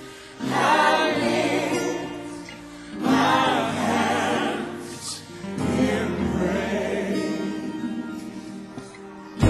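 Gospel song with music: voices singing in three long phrases with wavering held notes.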